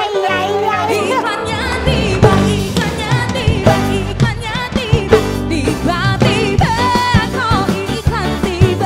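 Pop music with a lead singing voice over a band with bass and drums.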